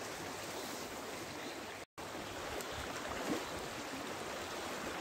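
Shallow river running over stones: a steady rushing wash of water. The sound cuts out for an instant about two seconds in.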